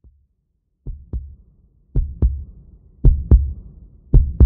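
Heartbeat sound effect: paired lub-dub thumps repeating about once a second, four pairs, starting about a second in and growing louder.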